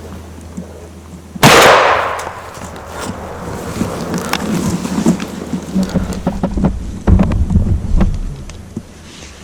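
A single shotgun blast about a second and a half in, its echo rolling away over about a second. Afterwards come scattered rustles and low thumps of movement.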